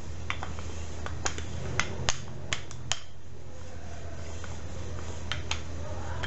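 Wooden rolling pin with handles rolled back and forth over dough on a granite countertop, giving irregular sharp clicks and knocks: several in the first three seconds and two more about five seconds in.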